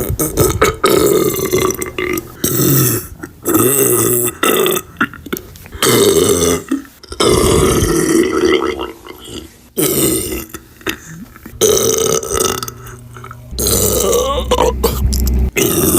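A woman belching loudly, a run of long belches one after another with short gaps between them; the longest, near the middle, lasts about two and a half seconds.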